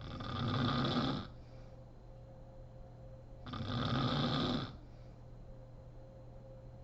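A sleeping woman snoring: two snores about three and a half seconds apart, each lasting about a second.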